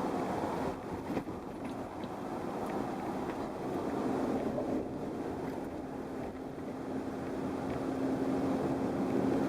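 Wind noise rushing into the cab of a 2016 Ford F-150 while it is driven, mixed with road noise, growing slightly louder toward the end. It comes more from the right door than the left, like an air leak past the door after repairs.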